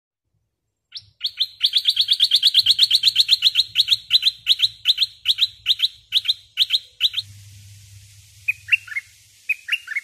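Caged decoy bulbul calling: a rapid run of sharp chips, very fast at first, then slowing and stopping about seven seconds in. A few softer, falling notes follow near the end.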